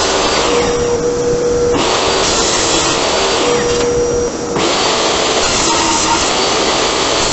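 Portable table saw running loudly and ripping a pine board. Twice the harsh cutting noise drops away, leaving the motor and blade's steady whine while the blade spins free.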